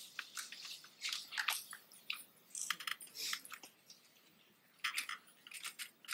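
Quiet, irregular crackling and rustling: a string of short high clicks and scrapes, with a near-quiet lull around the middle.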